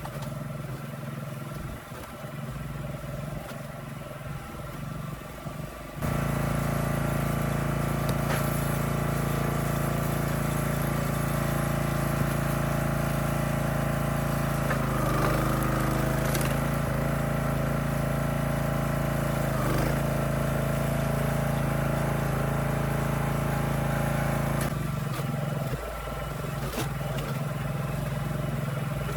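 Engine running steadily. It gets abruptly louder about six seconds in, dips briefly twice, and drops back to a quieter run near the end.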